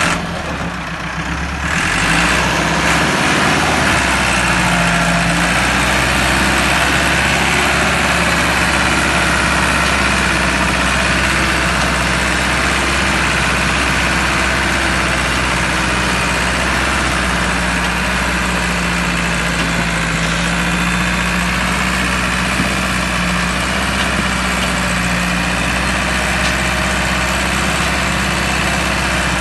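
Massey Ferguson 375 tractor's diesel engine running hard while pulling a heavily loaded sugarcane trolley through a field. It gets louder about two seconds in and then holds a steady, even drone.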